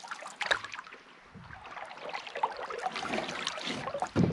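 Canoe paddle strokes in calm water: the blade swishing through and dripping, with small splashes and knocks, and a louder thump near the end.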